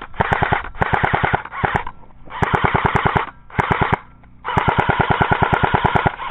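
Airsoft electric rifle firing on full auto in rapid bursts, about six of them, the longest lasting nearly two seconds near the end.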